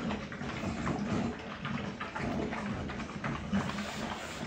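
Several dogs eating water-soaked kibble from one shared bowl: busy, irregular slurping, lapping and chewing with many small wet clicks.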